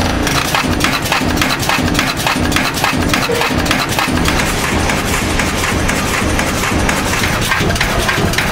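Multi-station cold-forging press running at speed: a loud, continuous, rapid clatter of punches striking the dies, with a regular heavier beat underneath.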